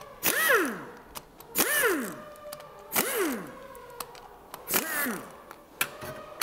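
Pneumatic pistol-grip wrench spinning out engine bolts: four short bursts of air hiss, each with a whine that rises quickly and then falls away as the tool coasts down.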